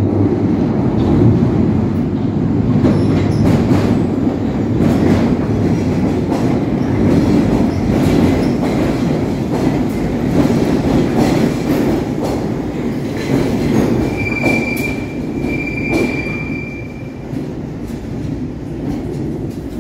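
London Underground Bakerloo line 1972 Stock train running over the points of a crossover in a tube tunnel: a steady heavy wheel rumble, with rapid clicks as the wheels cross the rail joints and frogs. A high-pitched wheel squeal comes twice, about two-thirds of the way through, and the rumble eases slightly near the end.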